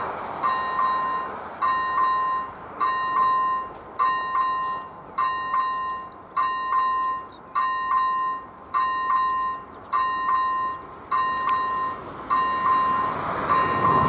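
First-generation electronic warning bell of an AŽD 97 level-crossing signal, ringing a repeated decaying ding about once every 1.2 seconds, each with a quick double strike. It warns that the crossing is activated for an approaching train and the barriers are about to come down. A rising rush of noise comes in near the end.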